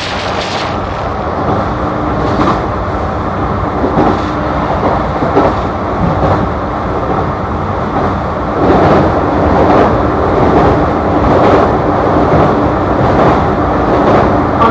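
JR E235 series electric train running at speed, heard from inside the car: steady running noise with the wheels clicking over rail joints, getting louder about halfway through. A loud rushing hiss cuts off just under a second in.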